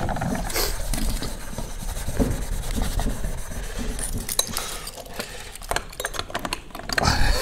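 Steel wool scrubbing copper pipes while metal earth bonding clamps are picked up and fitted, with scattered small metallic clinks and rattles.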